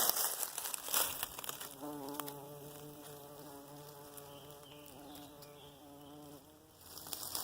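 A flying insect buzzing close by for several seconds, a steady droning hum that wavers slightly in pitch, with crunching footsteps in dry leaf litter at the start.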